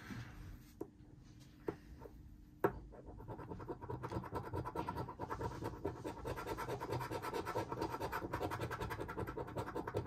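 A coin scraping the coating off a paper scratch card in rapid back-and-forth strokes. The scraping starts about three seconds in, after a few light clicks.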